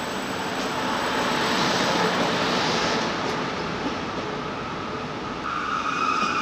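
Electric locomotive with double-deck coaches rolling into a platform under a trainshed roof: a rumble and hiss of wheels on rail that swells, peaking about two seconds in. Near the end a steady, higher-pitched tone comes in.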